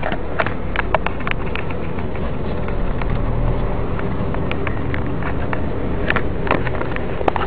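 Car moving at low speed, heard from inside the cabin: a steady low engine and road hum with scattered short clicks and knocks.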